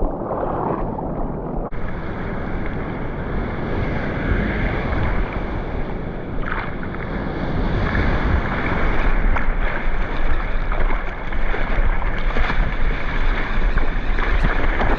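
Surf and water rushing and splashing around a surfboard, with wind buffeting the action camera's microphone. The sound shifts abruptly a couple of seconds in.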